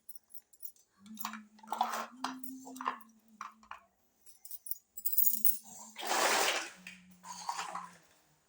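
Small pieces of a miniature toy kitchen set clinking and rattling as they are handled and set down, in a string of short clicks, the loudest about six seconds in. A low steady hum sounds underneath for part of the time.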